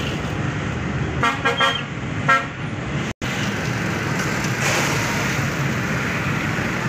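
Steady background rumble with a vehicle horn honking twice, about a second and two seconds in. Around the middle, a rush of peanuts in the shell pouring into a steel hopper.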